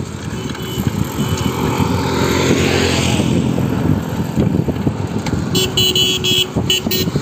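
Motorcycle engine running at riding speed, with wind buffeting the microphone. Near the end a horn gives several short beeps.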